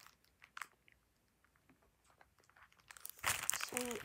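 A hard sour candy being chewed and crunched close to the microphone: a few small clicks at first, a quiet spell, then a louder run of crunching near the end.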